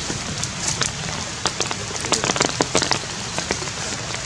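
Raindrops falling on leaves and leaf litter: irregular sharp ticks over a steady hiss.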